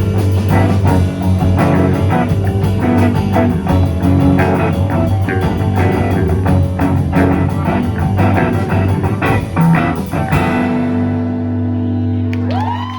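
Live rock band playing the ending of a song: the full band with drums until about ten seconds in, then a final chord left ringing. Near the end a note glides up and is held.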